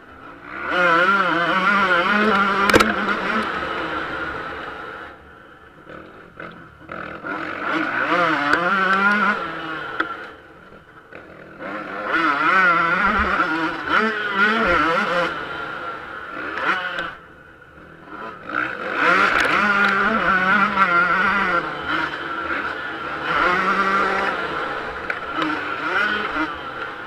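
Yamaha YZ125 two-stroke motocross engine at race pace, heard from on the bike, its pitch rising and falling with the throttle. It drops off briefly several times, about a fifth of the way in, a little before halfway, and around two-thirds through.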